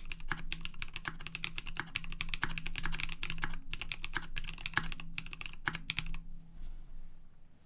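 Typing on a KBD D60 mechanical keyboard with lubed NovelKeys Cream linear switches, a polycarbonate plate and PBT keycaps: a quick, steady run of keystrokes that stops about six seconds in.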